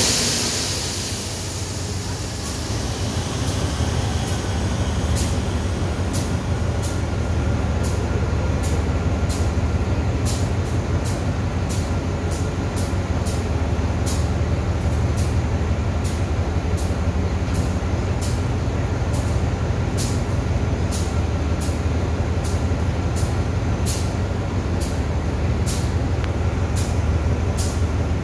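Diesel-electric locomotive idling at a standstill, a steady low rumble throughout. A burst of air hiss at the start fades away over about three seconds, and faint sharp clicks repeat about once or twice a second.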